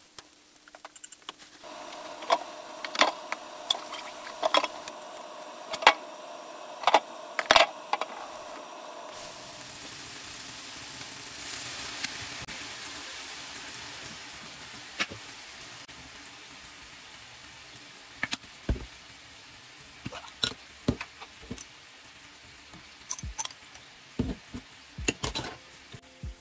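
Chicken breast pieces sizzling in a frying pan, with many sharp clicks of chopsticks against the pan as the pieces are turned. About nine seconds in the sizzle changes, swells, then slowly fades, with scattered chopstick clicks later on.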